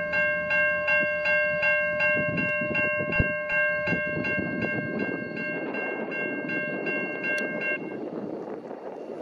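Railway level crossing bell ringing in quick, even strokes, about three a second, and stopping shortly before the end. Under it a train's rumble grows from about halfway through.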